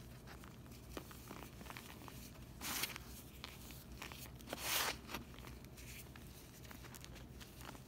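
Hands crumbling a pressed slab of scouring powder and gym chalk and raking through loose powder: soft crackling crunches, with two longer, louder gritty crunches, one about a third of the way in and one just past halfway.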